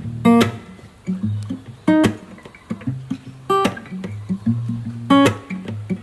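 Background music: a strummed acoustic guitar with a sharp accented strum about every one and a half seconds over a steady bass line, without vocals.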